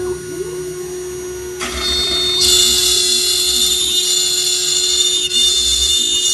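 High-speed router spindle whining steadily, then cutting into wood with a louder high hiss that sets in about a second and a half in.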